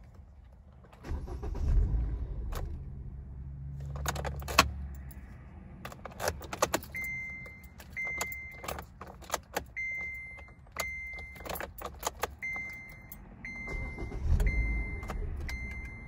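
2015 Kia Forte LX four-cylinder engine starting about a second in, running briefly and then dying on its own. This is the hard-start stall the owner gets every time the car has sat for hours, which only a light tap on the gas prevents. Key clicks and a dashboard chime repeating about once a second follow, and near the end the engine cranks and starts again.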